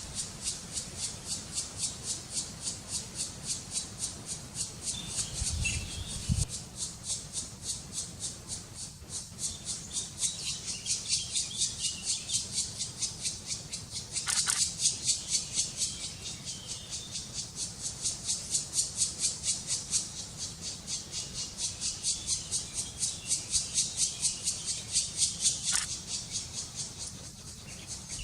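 Black woodpecker nestlings begging: a continuous high-pitched rattling chatter pulsing about three or four times a second, with a louder, harsher call near the middle and again near the end. A low thump about six seconds in.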